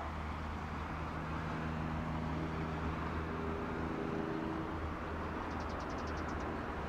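Steady hum of distant engines over outdoor background noise, with a second engine tone rising in for a few seconds mid-way. A quick run of about ten faint high ticks comes near the end.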